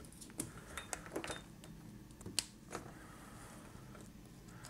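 A few light clicks and taps of a USB-C cable being unplugged, turned end for end and plugged back into a pen-style soldering iron. The sharpest click comes about two and a half seconds in.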